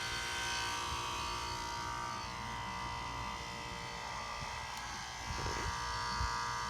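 2006 Nordic Air heat pump outdoor unit giving off a steady electrical buzz made of several fixed tones, while its condenser fan stands still instead of spinning. A few faint knocks come in near the middle.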